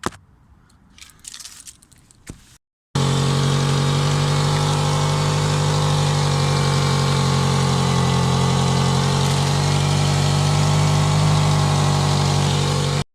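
Faint rustling at first, then about three seconds in a Toyota Celica's engine running steadily at idle, loud and hissy from an exhaust leak, which the owner thinks is a hole at the catalytic converter just ahead of the O2 sensor. The engine sound cuts off suddenly near the end.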